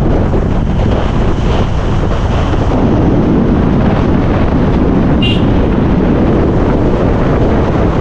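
Wind buffeting the microphone over the steady rumble of a moving vehicle, with a brief high-pitched beep about five seconds in.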